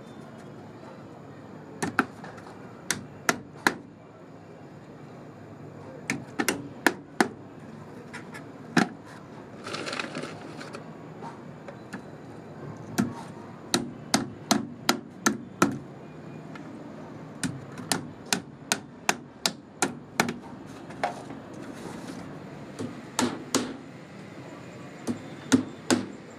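Hammer driving small nails into wood: short runs of sharp, quick strikes separated by pauses.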